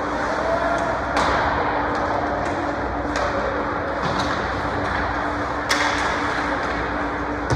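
Ice hockey play in an indoor rink: sharp clacks of sticks on the puck and against the boards, the loudest about a second in and again late, over a steady hum and the rink's noisy din.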